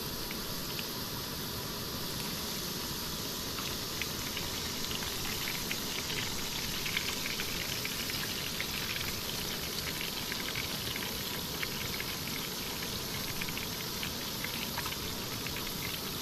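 Catfish fillets frying in hot oil in a skillet: a steady sizzle with many small pops and crackles, which grow busier a few seconds in.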